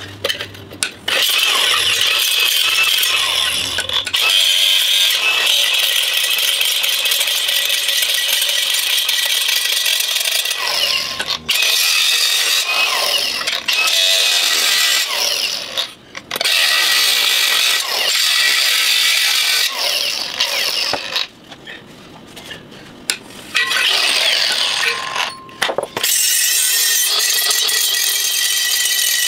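Cordless angle grinder grinding a steel wheel rim, throwing sparks: a loud high whine with harsh grinding noise, broken by several short pauses before it carries on.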